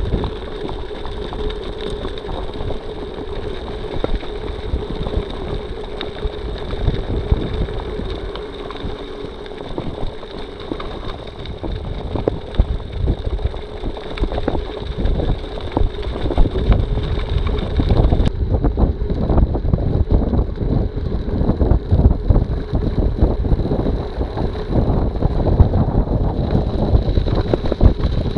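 Wind rushing over the microphone, mixed with the rattle and tyre noise of a mountain bike descending a gravel road at speed.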